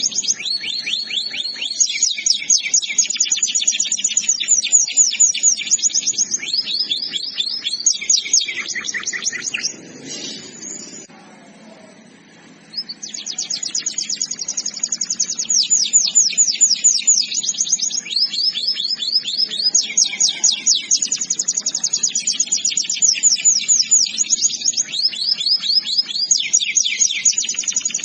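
Domestic canary singing long rapid trills, phrases of fast repeated high notes that change pitch from phrase to phrase. The song breaks off about ten seconds in for a few seconds, then resumes.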